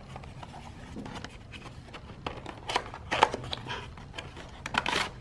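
Cardboard box being handled and slid open by hand: soft scrapes with a scatter of short clicks and taps, most of them in the second half.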